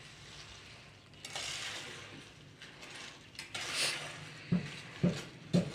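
Limes being squeezed by hand, juice squelching and spattering in two short stretches, followed by three sharp clicks near the end.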